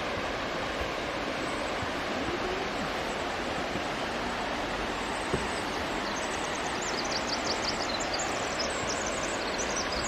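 Steady rush of falling water from a nearby creek or waterfall, with a songbird singing a fast run of high, quick notes in the second half. One small tap sounds about halfway through.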